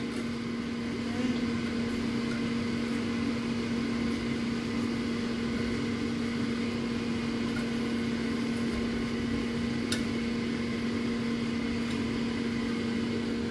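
Air fryer's fan motor running with a steady hum, not shutting off at its knob. A single light click about ten seconds in.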